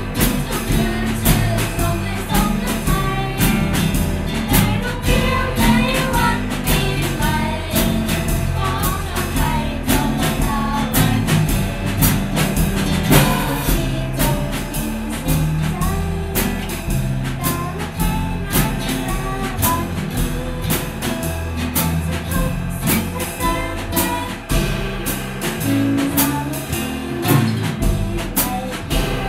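A small band playing a pop arrangement of a Thai New Year song: a drum kit keeping a steady beat under guitar and bass, with a melody line and singing at times.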